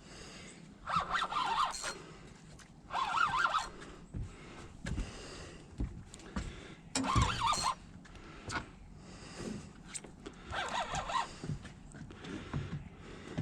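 Fishing reel drag buzzing in four short bursts as a hooked snook pulls line off the reel during the fight, with a few dull knocks between.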